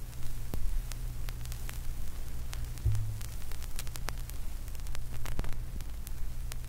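A steady low hum with scattered crackles and clicks of static running through it.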